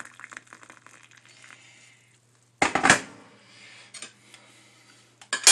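Dishes and cutlery clattering: a loud clatter about two and a half seconds in, another near the end, and light clinks between, over a faint low hum.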